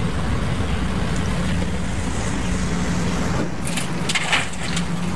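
Hyundai wheeled excavator's diesel engine running steadily under load as it works, with a crackling rush of dirt spilling from its bucket into a trailer about four seconds in.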